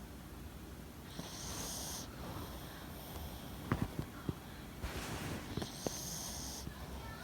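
Yorkshire Terrier breathing and snoring softly in its sleep: two long, hissing breaths about four seconds apart, with a few small clicks between them.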